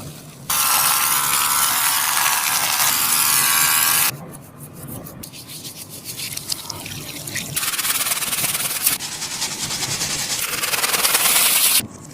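Sticky taba squishy being squeezed and rubbed close to the microphone: a loud, steady rubbing noise, then a quieter stretch of many small sticky clicks, then louder rubbing again that cuts off suddenly near the end.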